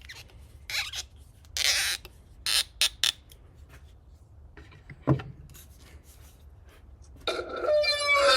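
Lightsaber chassis core being slid and fitted into a carbon-fibre hilt sleeve: several short scraping rasps and a knock about five seconds in. Near the end the saber's sound font starts through its speaker, a burst of falling pitched sweeps that settles into a hum.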